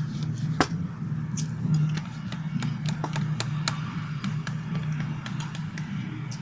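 Fluffy slime being squished and worked, giving a run of sharp, irregular clicks and pops. A steady low hum sits underneath.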